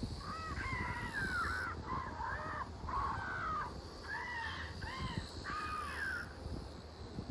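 A crow cawing, a series of about seven harsh, arching caws over some six seconds.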